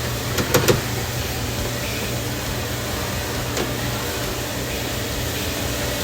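Steady hum and whir of running machinery, with a few short clicks about half a second in.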